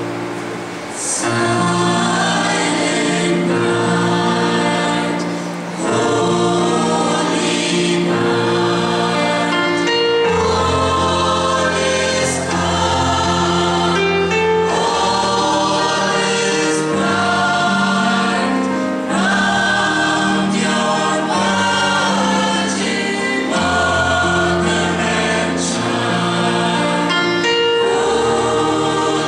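Church choir, mostly women's voices, singing a Christian hymn in harmony through microphones, in held chords that change every second or so. A low bass part comes in about ten seconds in.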